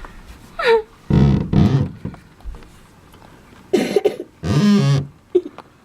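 A child coughing: two loud, hoarse coughing bouts, one about a second in and another near the end.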